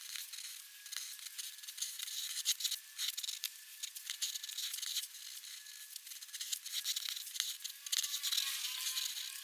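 Black pigment pen nib scratching over paper in quick, uneven strokes, a dry, hissy scratch that swells and fades with many small ticks as the pen touches down and lifts.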